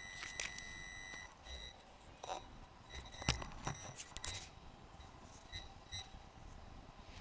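Electronic beeping from a quadcopter's on-board electronics: a steady beep tone that cuts off about a second in, then several short beeps at the same pitch, with a few light knocks from handling.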